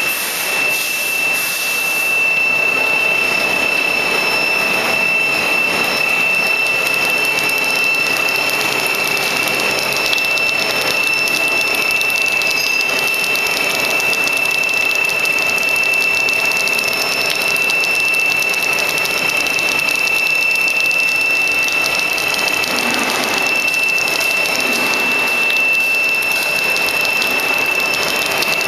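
Plastic sheet-making machine running steadily, with a continuous high-pitched whine over a dense, rapid mechanical clatter. A brief hiss sounds in the first couple of seconds.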